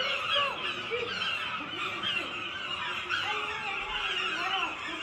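Many people talking at once: a babble of overlapping voices, some of them high-pitched.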